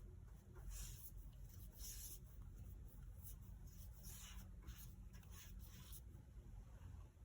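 Faint, irregular swishing strokes of a brush spreading marine spar varnish over a wooden board, over a low steady hum.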